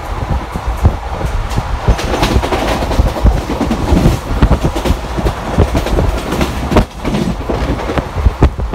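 Passenger train running at speed, heard from inside the coach: a steady low rumble with rapid, irregular clicks and knocks as the wheels run over rail joints. The noise dips briefly about seven seconds in.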